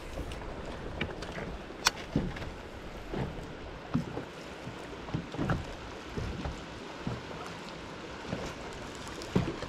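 Water lapping against a bass boat's hull in the wind, with scattered light knocks and clicks on the boat.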